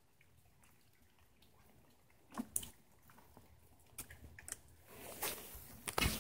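Footsteps crunching and scuffing over debris on a floor, with scattered sharp knocks and cracks, loudest near the end.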